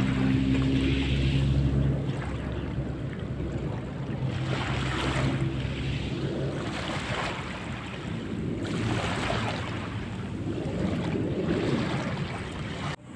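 Small waves lapping and washing over fine crushed-dolomite sand at the water's edge, each wash swelling and fading every second or two. A steady low hum sits under the water in the first couple of seconds and fades out.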